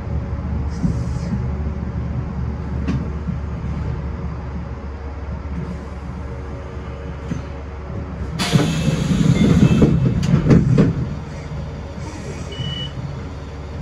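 Mizuma Railway electric train running, heard from inside at the front: a steady low rumble. From about eight to eleven seconds in it grows louder, with rapid clattering.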